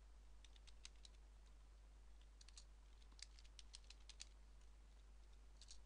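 Faint computer keyboard typing: scattered single keystrokes in small clusters.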